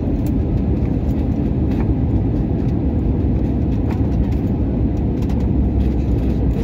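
Jet airliner cabin noise on final approach: a steady low rumble of engines and rushing air heard from inside the cabin, with a few faint clicks.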